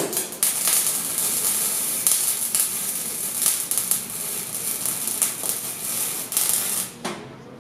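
MIG welding arc crackling and sizzling steadily as it joins steel rods, starting with a sharp crack as the arc strikes and cutting off suddenly about seven seconds in when the trigger is released.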